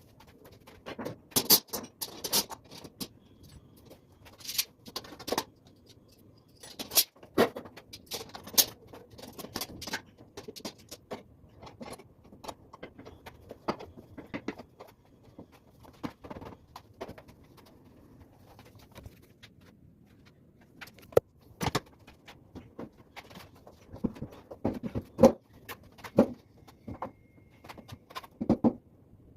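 Irregular knocks, clacks and clatter of wooden parts being handled and fitted together while assembling workbench legs, with quieter gaps between them.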